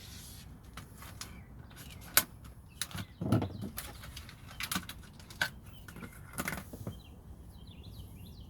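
Packaging of a new multi-bit screwdriver being opened by hand: rustling with a string of sharp snaps and clicks, and a louder rustle about three seconds in.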